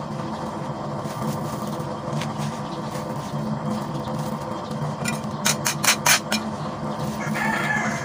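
Hands scraping and crumbling dry sandy soil and small gravel, with a quick run of sharp gritty clicks about five seconds in. A steady hum sits underneath.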